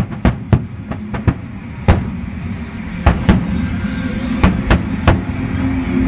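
Aerial fireworks shells bursting in an irregular string of about ten sharp bangs. Music rises faintly underneath in the second half.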